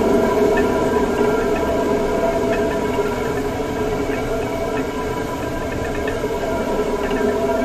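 Water-powered stone flour mill (gharat) running, its upper millstone turning and grinding maize fed from the hopper: a steady hum with faint light ticks.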